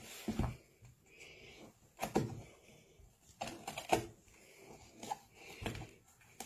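Irregular clicks, knocks and scrapes of hands and a folding knife working at the nylon cover of a ballistic panel, probing a bullet hole to dig out a lodged bullet.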